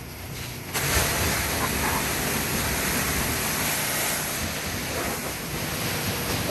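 High-pressure water spray from a commercial pressure washer hitting a hard surface: a steady, loud rush that comes in suddenly under a second in and holds.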